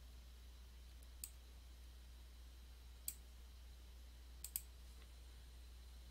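Near silence over a low steady hum, broken by a few faint, sharp clicks: one about a second in, one about three seconds in, and a quick pair a little after four seconds.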